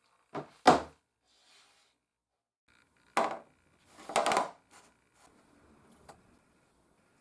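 Wooden parts knocking on a workbench. Two sharp wooden knocks come close together, then about three seconds later another knock and a short clatter, followed by a few faint clicks.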